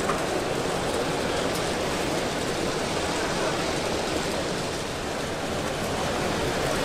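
Steady background hubbub of a busy exhibition hall, many distant sounds blended into an even noise.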